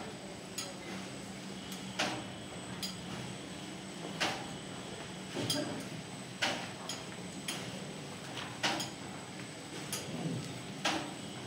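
Paper sheet cutting machine running with a steady hum, with a sharp clack about every two seconds as it cuts each sheet, and lighter clicks between.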